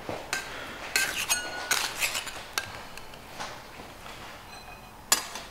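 Metal scraper clinking against the steel bars and marble slab of a candy cooling table while working a cooling batch of hard candy: several sharp ringing clinks at irregular spacing in the first few seconds, then one more near the end.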